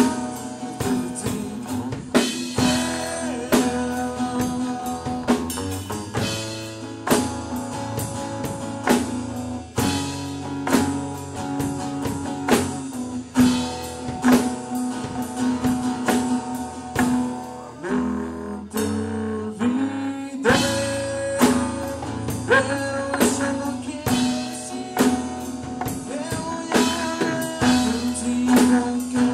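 Live band playing a song: a man singing over guitar, drum kit and timbales.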